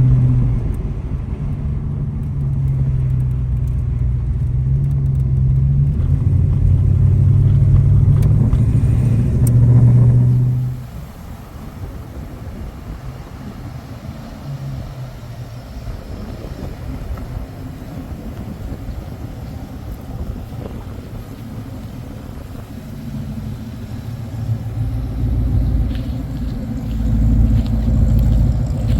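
Holden VK Commodore's V8 engine and exhaust under way on the road. It pulls loudly with a wavering note for about ten seconds, drops suddenly to a quiet cruise, and builds up again near the end.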